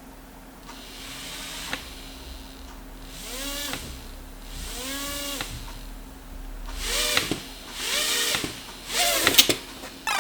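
The small electric motors of a toy quadcopter revving in about five short bursts, each a whine that rises in pitch, holds and falls away, over a steady low hum.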